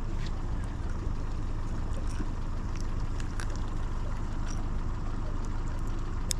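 Steady low rumble of strong wind buffeting the microphone on an open boat, with a few faint ticks.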